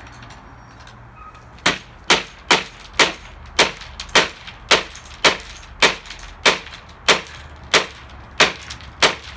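Hammer blows on a clock radio's broken casing on plywood, struck about two a second in a steady run of sharp impacts starting a couple of seconds in.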